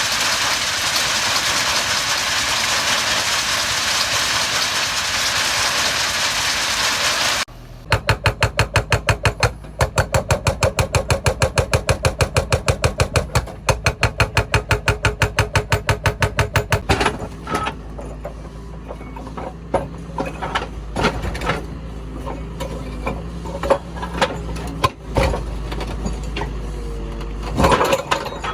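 Heavy machinery engine: a steady loud rushing noise, then an abrupt change to a rapid regular clatter of about six beats a second, followed by an engine running steadily with scattered clanks and knocks.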